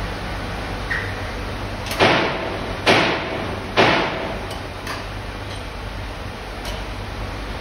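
Three sharp metallic knocks, a little under a second apart, each ringing briefly, as the bronze-casting crucible and its pouring shank are handled on the crane hook. A steady low hum runs underneath.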